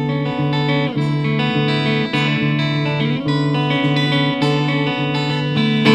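Solo Ibanez hollow-body archtop electric guitar played through an amplifier, a steady repeating low note under changing chords and melody notes, in an instrumental break between sung lines.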